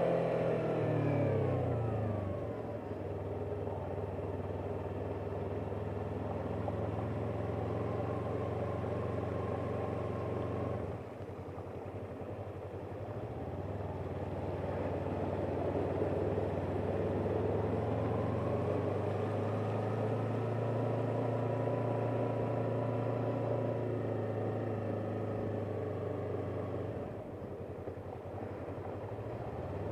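Yamaha R3's parallel-twin engine running as the motorcycle rides, revs falling at the start, easing off about a third of the way in, climbing again through the middle and dropping near the end.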